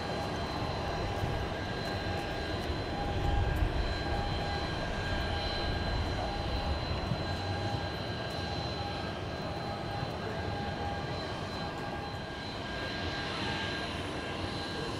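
Jet roar of a Boeing 787-8's Rolls-Royce Trent 1000 turbofans as the airliner climbs away after takeoff. The deep rumble swells about three to four seconds in, then eases slowly as the aircraft draws away.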